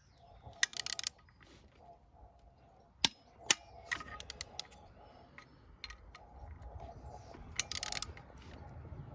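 Hand-tool work on engine mount bolts: two short bursts of ratchet clicking, about a second in and near the end, with two sharp metallic clicks near the middle and lighter ticks of tools in between.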